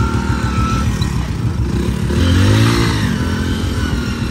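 Motorcycle engines running rough and labouring in mud, one revving up about two seconds in and easing back down, while towing a stuck Royal Enfield Bullet.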